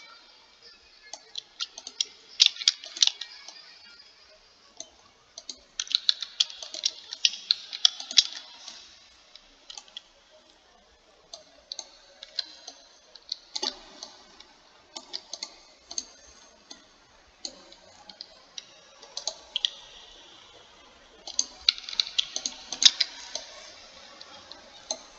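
Computer keyboard and mouse clicking in irregular bursts, with a few denser runs of rapid clicks.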